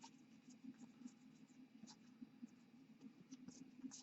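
Near silence: faint, scattered clicks and scrapes of trading cards being handled and slid through the hands, over a low steady hum.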